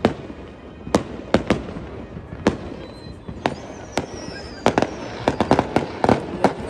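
Aerial fireworks display: sharp bangs of shells bursting about once a second, a falling whistle about three and a half seconds in, then a rapid run of crackling pops near the end.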